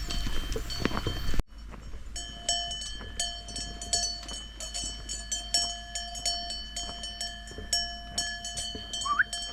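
Several cowbells clanking irregularly at different pitches, each strike ringing on. A short rising chirp near the end.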